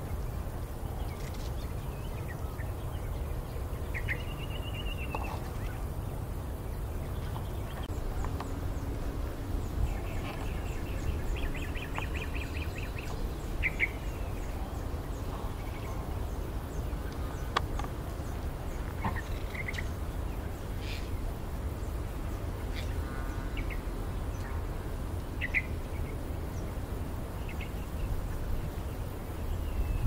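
Green parrots in a treetop giving short, scattered calls, with a run of rapid repeated notes about ten to thirteen seconds in, over a steady low rumble.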